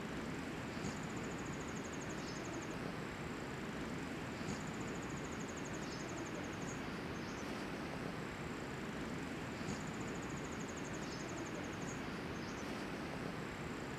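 Outdoor natural ambience: a steady background rush with a high, rapid, pulsing trill, like an insect's, coming back about every four seconds for a second or two each time, and a few faint short chirps in between.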